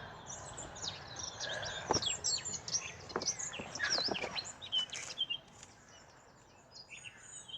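Wild birds chirping and singing, many quick high notes in a busy burst that thins out after about five seconds, with a few soft knocks among them.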